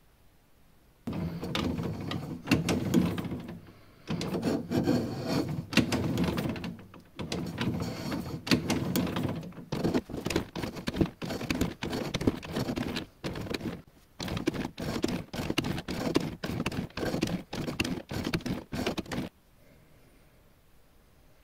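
Hand-tool work on a workpiece: rasping strokes, longer runs at first, then a quick series of short strokes two or three a second, stopping near the end.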